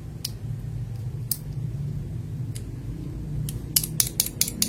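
Sharp plastic clacks of PBT keycaps being tested for their sound: a few single clicks about a second apart, then a quick run of clicks near the end, over a low steady hum.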